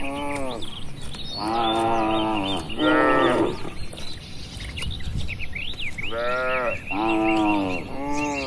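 Cattle mooing repeatedly: about six drawn-out moos, several of them falling in pitch at the end, with three coming close together in the last few seconds.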